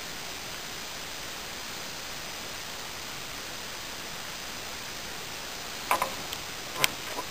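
Steady hiss of background noise, with a few short sharp knocks near the end, the loudest about a second before the end.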